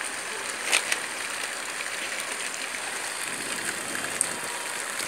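Steady hissing outdoor background noise, with a faint click about three-quarters of a second in and another near the end.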